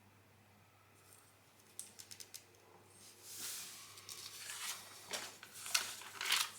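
Lego plastic pieces being handled during a build: a quick run of small clicks about two seconds in, then rustling and clattering of pieces, with louder clacks near the end.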